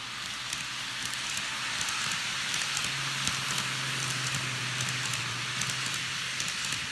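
Kato N-gauge model of a JR Kyushu 787 series train running past close by: a steady hiss of wheels rolling on the track with a low motor hum, getting a little louder as the cars pass, with scattered light clicks.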